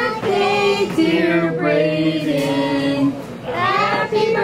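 Voices singing a slow melody, a child's and a woman's, holding each note for up to about a second.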